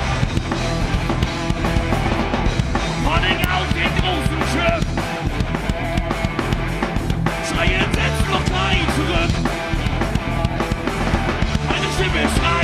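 Live rock band playing loudly: electric guitars, bass guitar and drum kit together in a steady driving passage.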